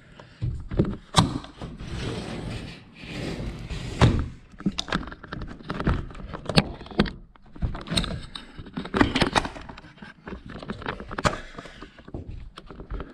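Sliding patio door clunking and rattling against a newly fitted CAL double bolt lock, which holds it shut. There are repeated sharp knocks throughout and a brief scraping stretch about two to four seconds in.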